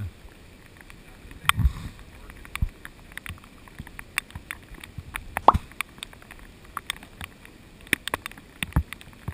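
Irregular light ticks of raindrops striking the camera housing over a faint steady hiss, with a few dull knocks, the loudest about five and a half seconds in.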